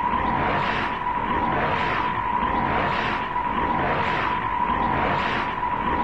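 Sci-fi robot sound effect for King Joe Black: a steady electronic whine under a mechanical whooshing noise that swells and fades about once a second, in an even rhythm.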